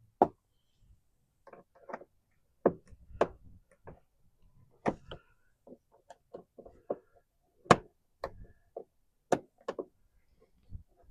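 Irregular sharp clicks and knocks, about twenty in all, from hands working plastic wheel-arch trim and fender-liner parts on a car.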